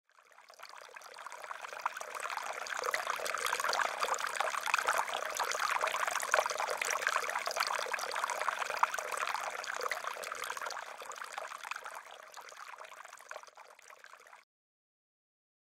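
Running water trickling and splashing in a steady stream. It fades in over the first few seconds, fades down later on, and cuts off suddenly about a second before the end.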